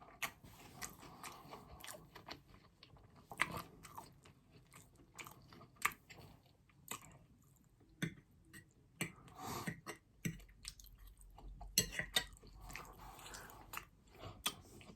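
Quiet, close-miked chewing of food, with irregular wet mouth clicks and smacks between the bites.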